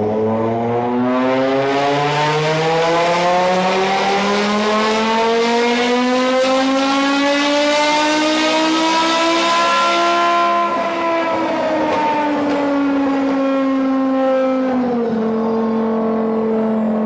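BMW M5 engine pulling hard, its note rising steadily for about ten seconds under a rushing hiss, then falling away and dropping a step near the end.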